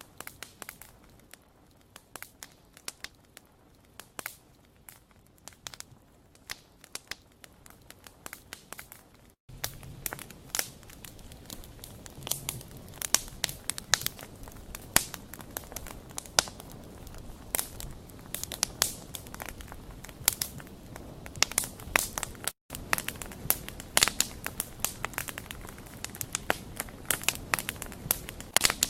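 Wood fire crackling and popping with a dense run of sharp snaps over a faint hiss, quieter for the first third and fuller after, cutting out to silence for a split second twice.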